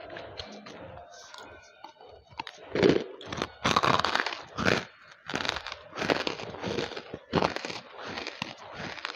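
Banslochan (tabasheer, hard chalky lumps of bamboo silica) being bitten and chewed right at a headset microphone: quieter chewing at first, then from about two and a half seconds in a run of loud, irregular crunches.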